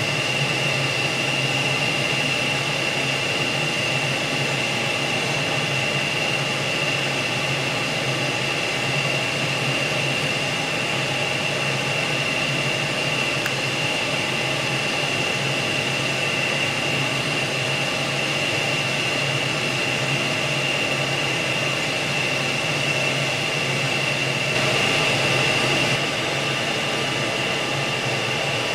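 CES liquid-nitrogen spiral freezer running: a steady machine hum and hiss from its fans and belt drive, with a constant high whine over it. It gets slightly louder for a second or so near the end.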